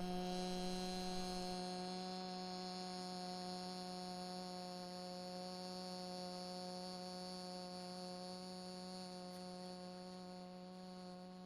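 A voice chanting a long hummed 'mmm' on one steady pitch as part of a sound meditation, sliding up slightly as it begins and growing slowly softer as the breath runs out.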